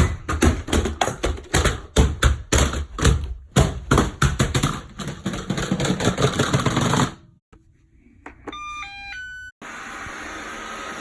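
Robot vacuum tumbling down a staircase after a kick, clattering and banging in rapid, loud knocks for about seven seconds. After a break, a short run of electronic beeps follows.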